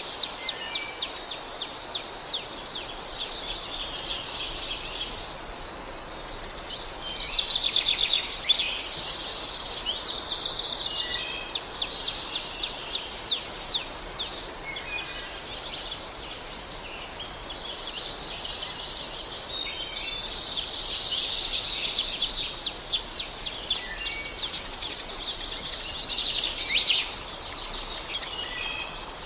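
A flock of small birds chirping and twittering densely, swelling and fading in waves every several seconds, over a steady background hiss.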